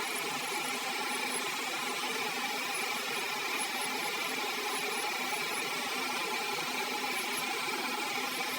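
Electric nail drill (e-file) running steadily with a high whine while a carbide bit grinds gel polish off a toenail.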